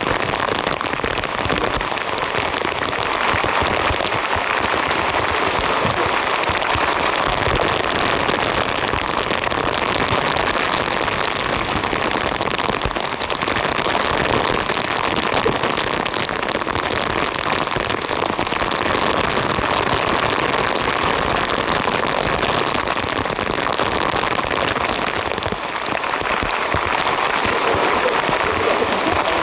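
Heavy rain falling steadily, a dense, even hiss of countless drops.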